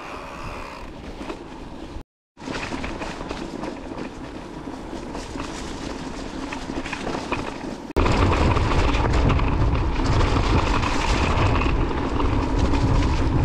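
Mountain bike riding over a rough trail: steady tyre rumble and frame rattle with many small knocks, and wind on the microphone. The sound drops out for a moment about two seconds in, then jumps abruptly louder about eight seconds in, with a heavy low rumble from there on.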